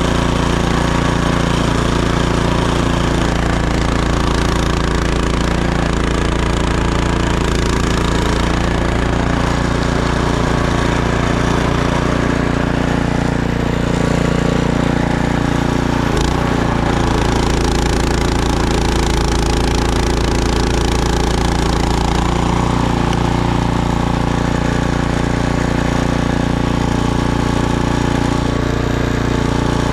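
Gas snowblower engine running steadily under load while blowing snow, with one short knock about halfway through.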